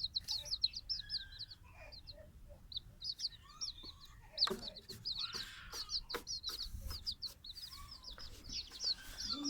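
Several baby chicks peeping: a steady stream of rapid, high cheeps, with a few sharp knocks among them.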